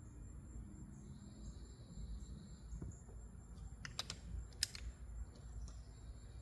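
A few sharp mechanical clicks from handling a pellet air rifle, about four seconds in, the last the loudest, over a steady high-pitched insect drone.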